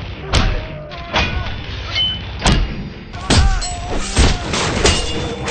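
Fight sound effects: a rapid string of about seven punch and kick impacts, sharp smacks and thuds, with short grunts among them.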